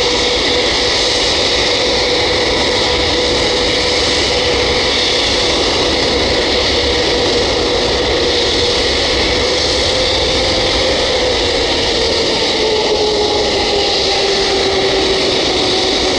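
Boeing 787-8's Rolls-Royce Trent 1000 jet engines running at taxi power as the airliner rolls past: a steady jet whine over a loud rushing hiss, the whine falling slightly in pitch in the second half as it moves away.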